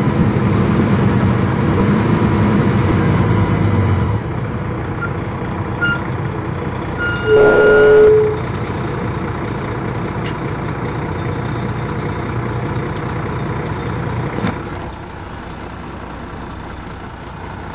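MCI D4000 bus's Detroit Diesel Series 60 engine running, dropping to a quieter idle about four seconds in. A short beep comes about six seconds in, and a brief louder tone near eight seconds is the loudest sound. A click comes near fifteen seconds, after which the engine is quieter still.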